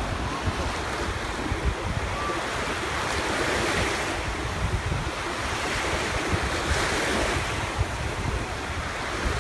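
Small sea waves breaking and washing in toward the shore, a steady surf wash that swells twice, with wind buffeting the microphone.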